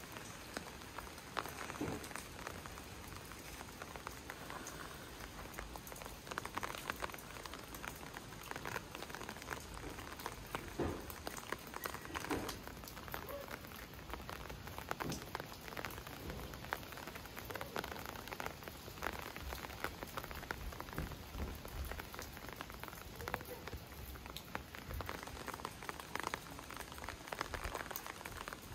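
Rain falling steadily, with many small irregular drops spattering close by.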